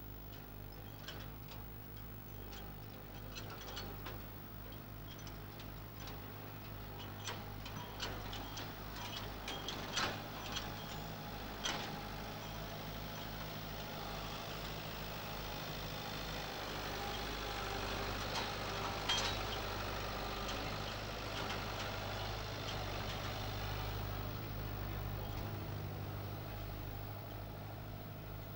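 Farm tractor's diesel engine running steadily while it manoeuvres a trailer, growing louder toward the middle, with scattered sharp clicks and knocks in the first half.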